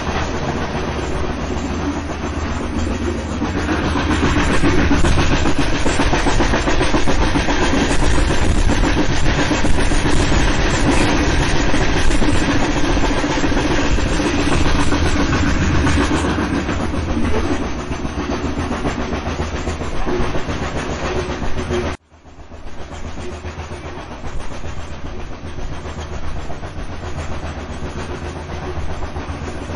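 Steam train running along the track. The sound drops out suddenly for a moment about 22 seconds in, then carries on quieter.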